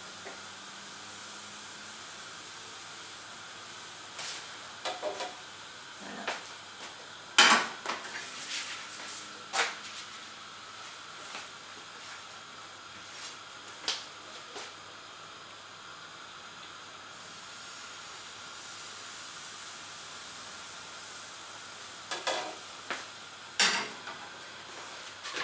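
Crêpe batter sizzling steadily in a hot pan, with a few sharp knocks and clinks of utensils against the pans, the loudest about seven seconds in.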